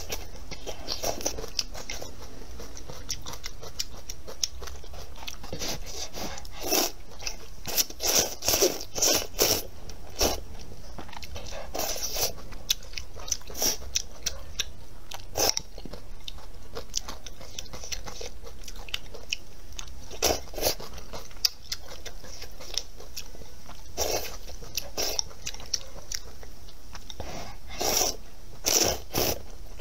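Close-miked chewing and crunching while eating pickled-cabbage noodles, in short clusters of bites every few seconds.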